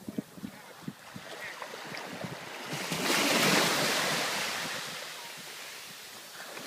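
Surf on the shore: a wave breaks about three seconds in and its wash slowly fades, with a few small knocks before it and some wind on the microphone.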